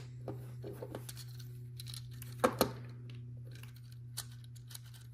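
Plastic Lego Technic pieces being handled and pressed together: small clicks and rattles, with two sharper snaps close together about two and a half seconds in, over a steady low hum.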